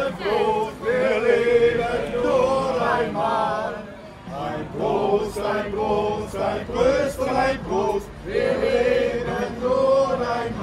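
A group of men singing together in chorus, a toasting song with long held notes, pausing briefly about four seconds in.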